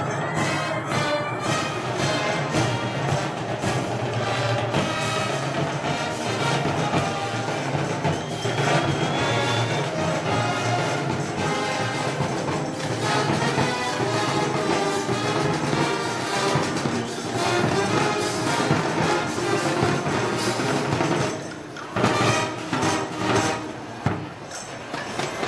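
Brass band with drums playing festival parade music. The band dips briefly about three-quarters of the way through.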